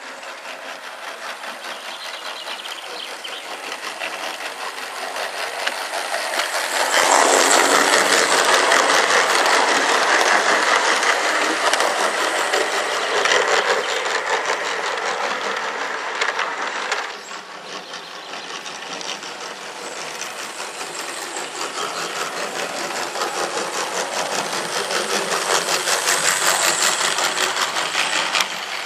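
Model trains running on a garden railway, their wheels rolling along the track. The noise grows loud as a train passes close, drops off sharply about two-thirds of the way through, then builds to a second peak near the end.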